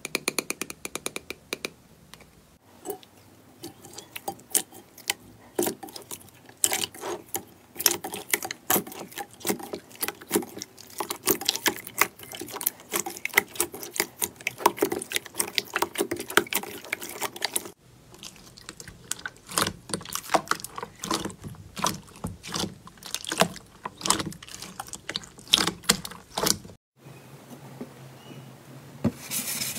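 Slime being squeezed and pressed, with rapid, irregular crackling and popping clicks. The texture changes abruptly twice, about 18 and 27 seconds in.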